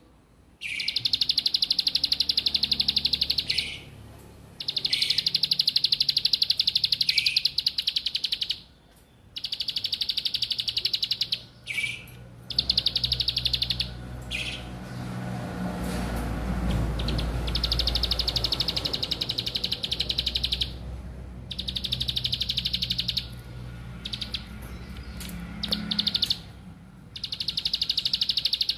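Prinia (ciblek) singing its fast buzzing trill, the 'ngebren' song, in repeated bouts of one to four seconds with short pauses between them. A low rumble runs underneath through the middle of the stretch.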